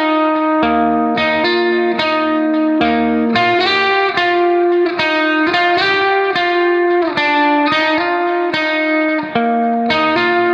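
Background music: a guitar playing a steady plucked melody with chords and a bass line underneath.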